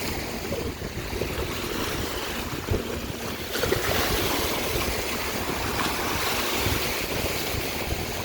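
Lake waves washing and breaking against the pier and shore, with wind buffeting the microphone; the surf wash grows louder about three and a half seconds in.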